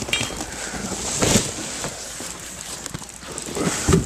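Crumpled brown packing paper crinkling and rustling as a box of parts is unpacked by hand, with louder crunches about a second in and near the end.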